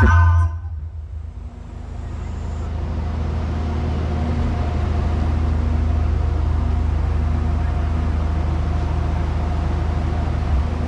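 A deep, steady rumble from an outdoor sound system's bass cabinets, with a hissing wash that swells up over the first few seconds and then holds. It replaces a music track that cuts off just after the start.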